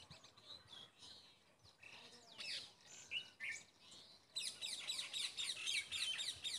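Birds chirping. Scattered calls give way, about four and a half seconds in, to a dense run of quick, repeated chirps.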